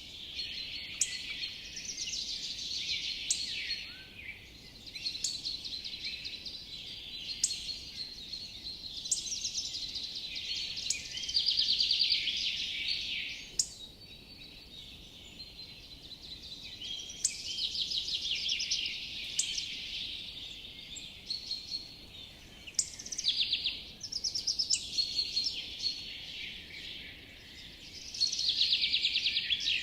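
Forest birdsong: several birds singing at once, a steady chorus of chirps with louder rapid trills every few seconds and short high notes repeating over it.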